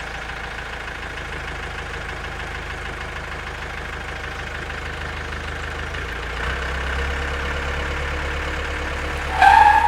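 A vehicle engine idles steadily, then runs a little harder from about six and a half seconds in. A brief louder, higher sound comes near the end.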